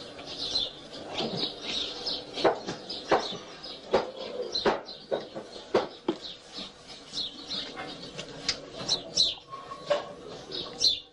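Horse-stable ambience: small birds chirping over scattered irregular knocks and rustles.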